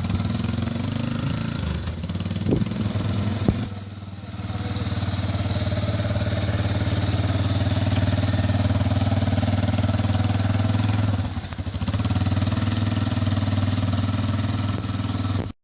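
Engine of the vehicle towing a grader, running steadily under load, easing off briefly about four seconds in and again near eleven and a half seconds. Two sharp knocks come just before the first dip.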